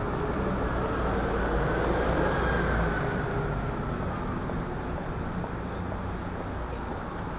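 City street traffic: a steady rumble of road vehicles that swells for a second or two about two seconds in, with a faint tone rising and then falling in pitch as a vehicle goes by.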